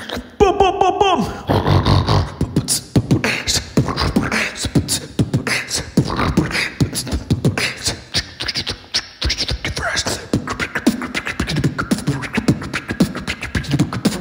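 Live human beatboxing into a microphone: vocal drum sounds, low kicks and sharp snare and hi-hat clicks, in a fast, busy rhythm, opening with a short wavering pitched vocal sound.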